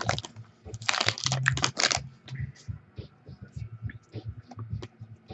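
Trading card pack wrapper being torn open and crinkled, then a string of light clicks and taps as the cards are handled and flipped through.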